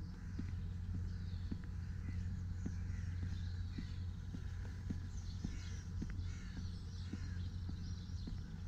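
Outdoor ambience: birds calling now and then over a steady low hum, with soft regular ticks about twice a second.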